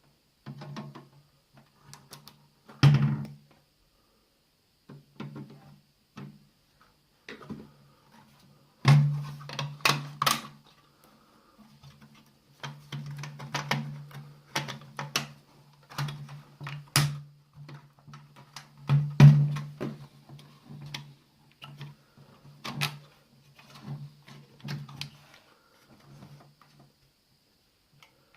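Irregular clicks, taps and knocks from taking apart a Sky+HD satellite box: tools and hands working on its plastic and metal casing and parts. The loudest knocks come about 3, 9 and 19 seconds in.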